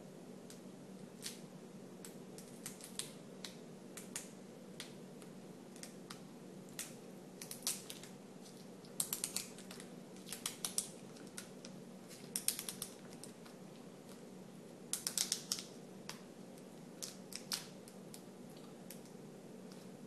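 Small sharp plastic clicks and taps, some in quick clusters of several, from handling the laptop's LCD panel and unplugging its display cable connector, over a faint steady hum.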